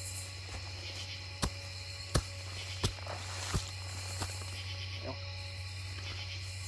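Camp shovel blade striking and chopping into root-filled ground: about five sharp hits, roughly two-thirds of a second apart, from about a second and a half to four seconds in.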